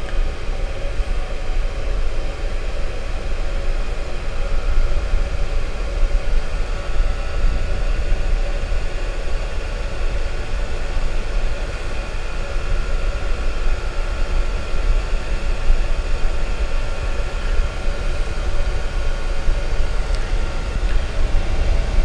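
Diesel air heater running steadily at level 6, its blower pushing a strong stream of air out of the hot-air outlet, with a low rumble and a faint steady whine.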